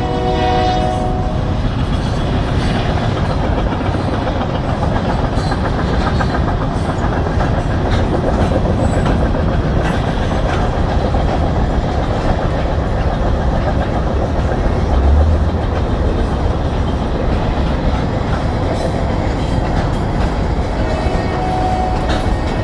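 Union Pacific weed sprayer train rolling past close by: a steady rumble and rattle of wheels over the rails. A horn tone cuts off about a second in, and a fainter horn tone sounds again near the end.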